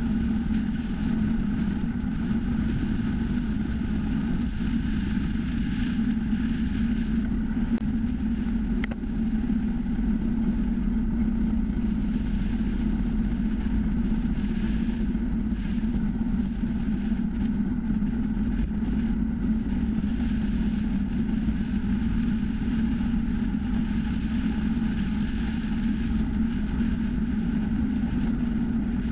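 Steady low drone of wind rush and tyre noise on asphalt, picked up by a GoPro mounted on the front of a time-trial bicycle riding along a road at speed.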